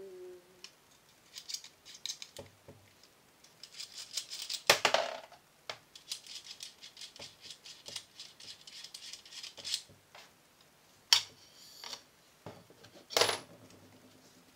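Parts of an ASG Scorpion EVO airsoft gun clicking and rattling as it is handled and taken apart by hand. There are a few sharper knocks, the loudest about five seconds in.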